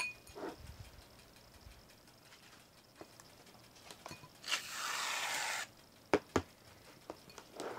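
Aerosol can of shaving cream spraying foam in one steady hiss lasting about a second, followed by two sharp knocks.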